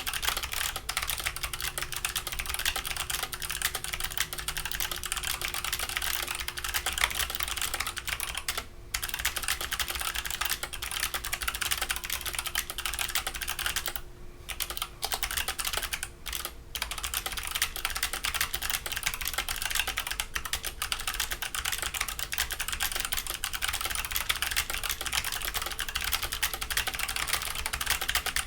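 Mechanical keyboard clicking rapidly and continuously, with a few short pauses.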